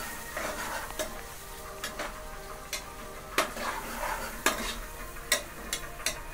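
Chopped onions and green chillies sizzling in hot oil in a pressure cooker while a metal spatula stirs them, with sharp clinks and scrapes of metal on the pot at irregular moments.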